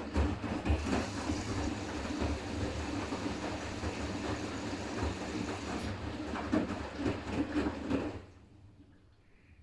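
Siemens iQ500 front-loading washing machine turning its drum in the last rinse: motor hum with laundry and water churning and clattering inside. It stops abruptly about eight seconds in as the drum pauses.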